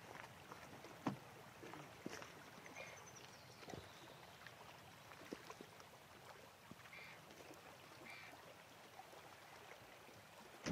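Faint shoreline ambience: small waves lapping against the stones of a breakwater, with a few short bird calls and a sharp knock about a second in.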